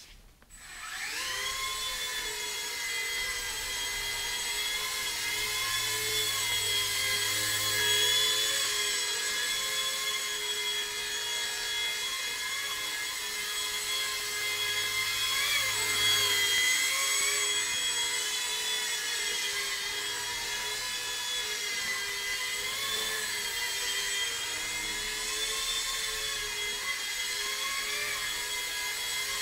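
Blade mSR X micro RC helicopter spinning up in about a second, then a steady electric motor and rotor whine with small rises and dips in pitch as the throttle changes.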